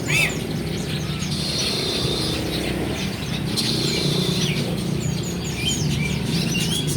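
Many caged birds chirping and calling at once, short high chirps and trills overlapping throughout, over a steady low rumble of background noise.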